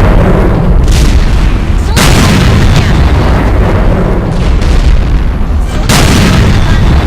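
Loud booming blasts: sudden hits about two seconds in and again near the end, with a weaker one about a second in, each dying away in a long heavy rumble.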